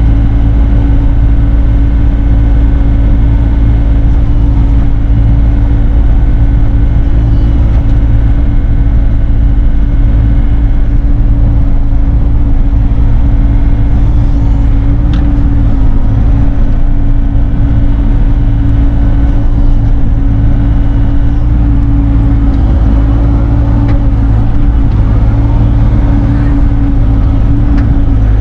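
Bobcat E42 mini excavator's diesel engine running steadily under work, a loud, even drone.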